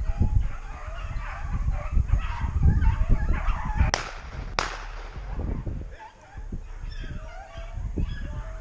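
A pack of rabbit hounds baying and yelping on a running rabbit's trail, with wind buffeting the microphone. Two sharp cracks come about two-thirds of a second apart near the middle.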